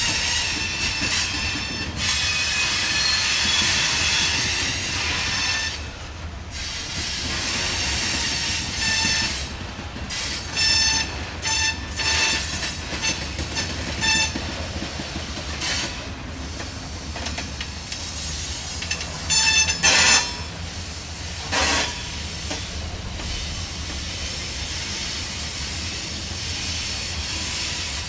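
Covered hopper cars of a slow-rolling freight train passing, with a steady rumble of wheels on rail and intermittent high-pitched wheel squeals in short bursts. A couple of louder sharp clanks come about two-thirds of the way through.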